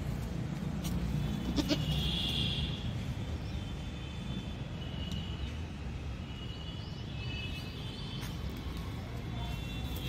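Young goat bleating several times in high-pitched calls, over a steady low background noise.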